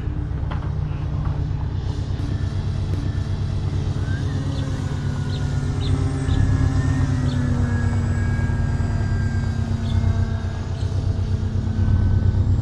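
Distant electric motors and propellers of two Flex RV-8 60E RC planes whining in flight, their pitch gliding slowly up and down as they fly their passes, over a steady low rumble.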